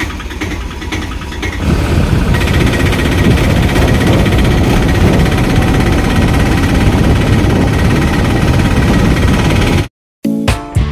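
Piaggio Ape goods carrier's engine running, getting much louder about two seconds in as it pulls away and then running steadily under load. It cuts off abruptly near the end.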